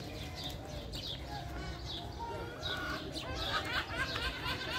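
Many birds chirping, a stream of short falling chirps that grows busier about halfway through, over a low murmur of people's voices.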